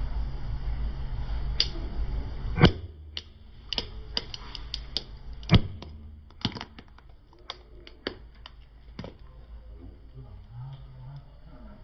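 A car tyre rolling over and crushing plastic toys. A low engine rumble ends with a loud crack, a second loud crack follows about three seconds later, and then a run of small sharp snaps and clicks that thin out.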